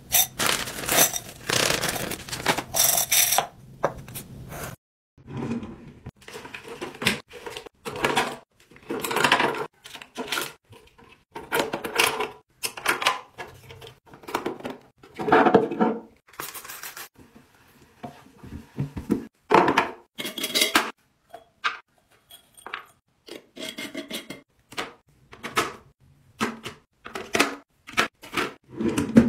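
Plastic floss picks clattering as they are dropped by the handful into a glass jar, a dense run of fine clicks. Then a string of separate taps, clicks and rustles as plastic containers and small items are set down in a drawer organizer.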